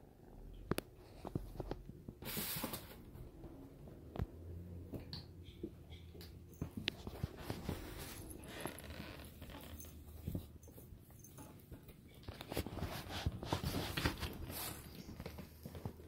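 Kittens playing among cardboard scratchers and toys: irregular scratching, rustling and light taps from their paws on cardboard and carpet.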